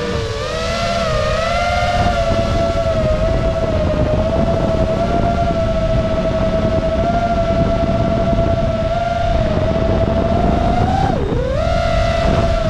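Quadcopter drone's electric motors and propellers whining at a steady pitch in flight, with a rushing wind noise underneath. Near the end the pitch drops sharply and climbs straight back as the throttle is changed.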